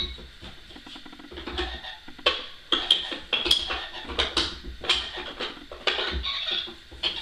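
Quick, irregular clicks and taps, two or three a second, with short high squeaks among them, as small hard objects are handled.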